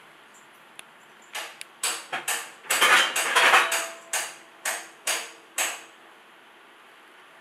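Metal kitchenware knocking and clinking, about a dozen sharp strikes over four seconds with a dense clatter in the middle.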